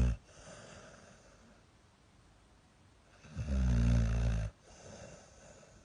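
A sleeping dog snoring very loudly: one long, deep snore just past the middle, with quiet breathing before and after.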